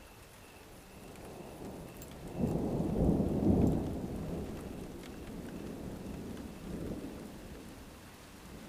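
Thunder rumbling over steady rain. It builds about a second in, is loudest around three seconds in, and rolls away with a smaller swell near seven seconds.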